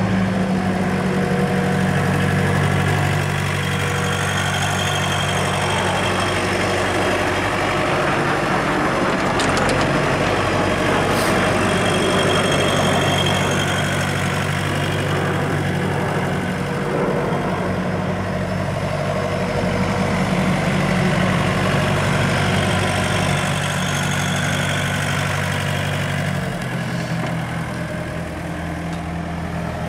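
Volvo EW55 wheeled excavator's diesel engine idling steadily, its note dropping slightly near the end.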